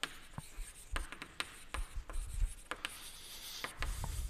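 Chalk writing on a blackboard: a quick run of short taps and scratchy strokes as a line of text is written.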